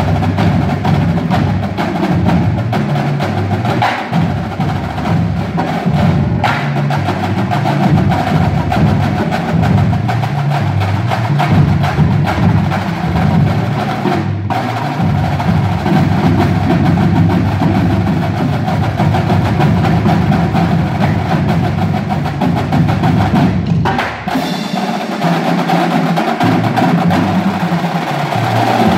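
High school drumline playing a loud, continuous percussion piece: rapid snare drum patterns and rolls over tenor drums and pitched bass drums, the full ensemble playing together.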